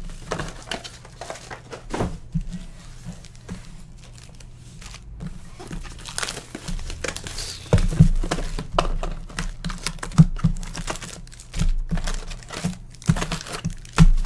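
Foil trading-card pack wrappers crinkling as stacks of packs are handled and sorted by hand, with irregular light knocks as packs and a box are set down on the table.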